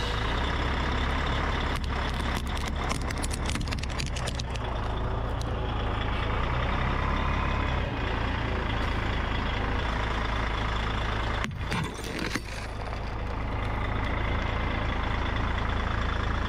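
A 7-ton truck's engine running low and steady while its tyre rolls over Christmas baubles, crunching and cracking them apart about two to four seconds in. Another short burst of crunching comes around twelve seconds in.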